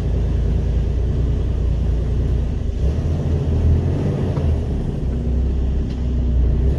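Mercedes Actros MP4 truck's diesel engine running steadily under load as the truck creeps up a snow-covered climb, a low rumble that swells a little in the middle.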